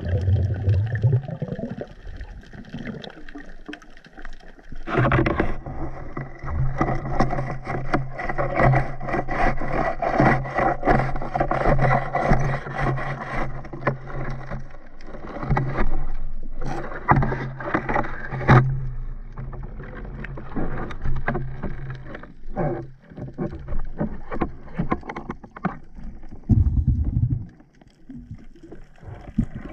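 Underwater sound picked up by a diver's camera: dense clicking, scraping and knocking as the diver moves along the seabed, over a steady low hum through much of it.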